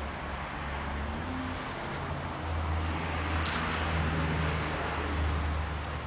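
Low engine rumble of a motor vehicle going past off-screen, swelling through the middle and easing off near the end.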